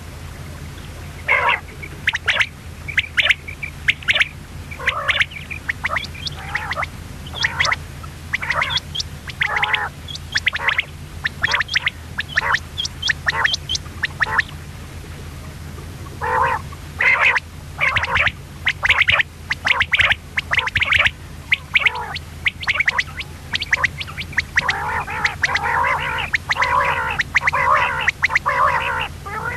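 Female common quail calling: runs of short, sharp notes in quick succession, with a short break about halfway and a denser stretch of rapid chattering near the end. A steady low hum sits underneath.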